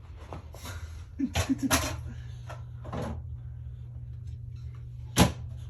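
Hard toy pieces being handled, with a few light knocks and clicks. A short child's voice sound comes about a second in, and one sharp clack near the end is the loudest.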